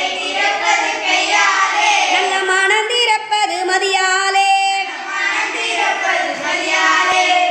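A small group of children singing a Tamil song together, unaccompanied.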